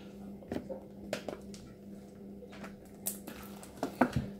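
Homemade glue slime being stretched and kneaded by hand, with soft scattered squelches and sticky clicks, the sharpest about three and four seconds in, over a low steady hum.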